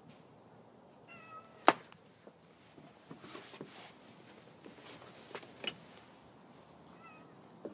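A domestic cat meowing briefly, once about a second in and again near the end. A sharp click, the loudest sound, comes right after the first meow, with scattered knocks and rustles in between.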